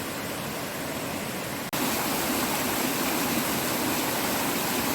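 Mountain stream water rushing over rocks, a steady wash of noise. About two seconds in it cuts off for an instant and comes back a little louder.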